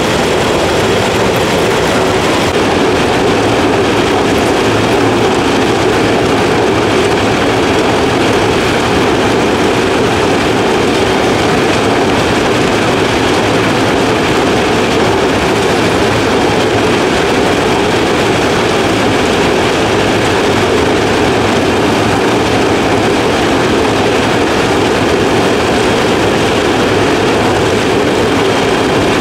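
John Deere rice combine harvester running steadily at work: engine and harvesting machinery making a loud, even mechanical din with no breaks.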